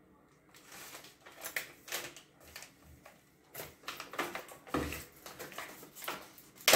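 Plastic food packets crinkling and rustling in the hands as one is set down and another is picked up and opened, in irregular crackles with a sharp snap near the end.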